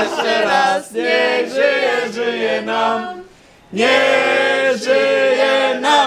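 A group of people singing together in loud, held notes, breaking off briefly about three seconds in before carrying on.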